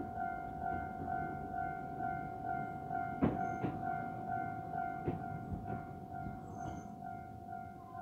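Japanese railroad crossing's warning bell ringing steadily, about two dings a second, while the barriers are down. A few sharp knocks come about three and five seconds in.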